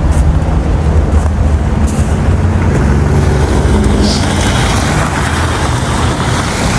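Motor vehicle engine running close by: a loud, steady low rumble.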